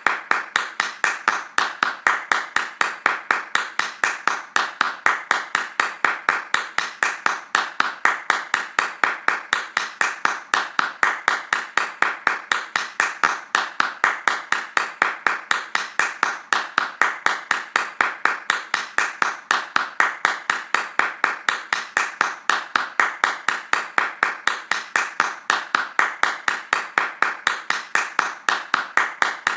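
Hands clapping fast in a steady, even rhythm, several claps a second with no let-up.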